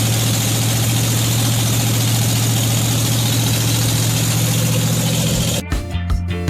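Chrysler 440 big-block V8 idling steadily, freshly installed and not yet broken in. It cuts off abruptly near the end as guitar music comes in.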